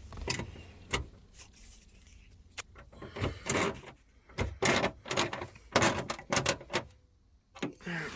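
Irregular clicks, light knocks and short scraping rustles of parts and tools being handled as a vehicle's interior panel and bolts are refitted by hand. The handling is busiest in the middle and pauses briefly near the end.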